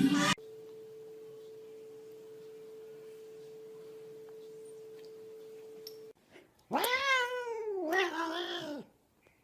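A steady hum for about six seconds, then a cat gives a long meow that jumps up in pitch and slowly falls, running straight into a second, wavering meow.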